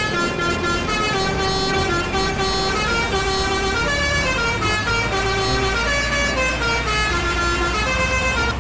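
Multi-tone truck horns playing a melody, one held note after another, over a steady low engine rumble.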